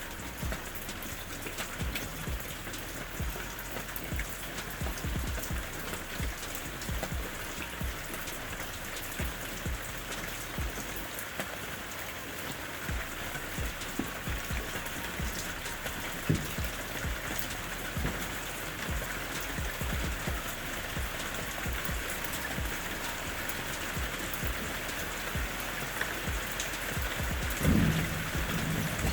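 Steady rain falling, with many individual drops pattering sharply on a hard surface. One louder low thump comes near the end.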